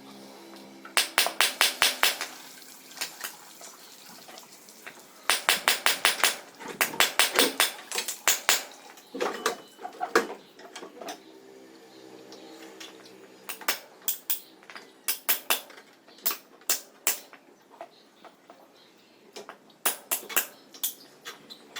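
A ratchet wrench clicking in quick bursts of about a second, several times, as bolts are worked loose. Steady background tones run underneath.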